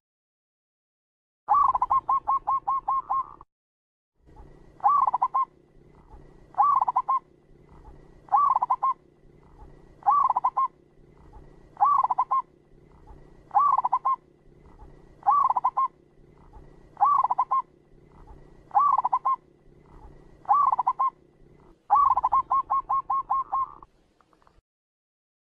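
Zebra dove (perkutut) cooing. A fast run of staccato coo notes about a second in, then a short cooing phrase repeated about every second and a half, then another fast run near the end. Abrupt dead silences before and after.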